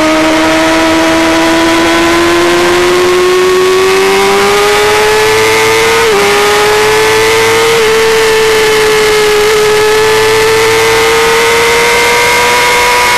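1990 Honda CBR250RR's 250 cc inline-four engine running at high revs under load, its pitch climbing slowly, with brief small dips about six and eight seconds in.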